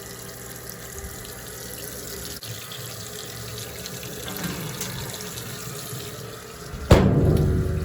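Top-loading washing machine filling with water at the start of a wash cycle, a steady rush of running water. Near the end a sharp knock is followed by a louder rush that cuts off abruptly.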